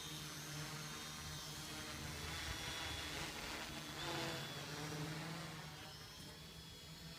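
Quadcopter's electric motors and propellers buzzing steadily in flight, growing a little fainter near the end.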